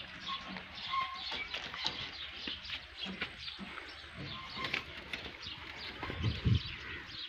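Many birds chirping around a farmyard, with a low thump about six and a half seconds in.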